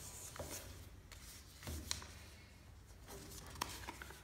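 A sheet of lined paper rustling and crackling as hands fold and crease it, with scattered short crisp crackles.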